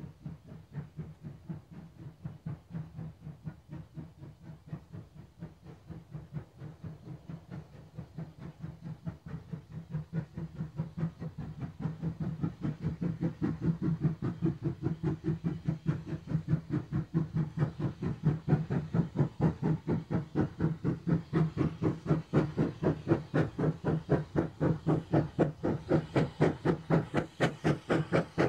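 Small 0-4-0 industrial saddle-tank steam locomotive working, its exhaust beats coming steadily at about four a second and growing louder from about halfway through.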